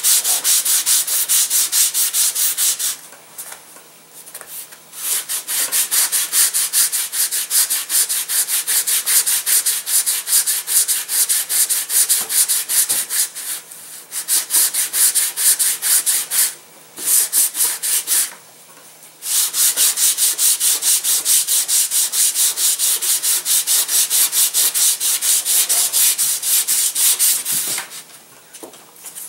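Sandpaper rubbed over a model glider's wing in quick, even back-and-forth strokes, thinning the wing to lighten it. The sanding stops briefly a few times.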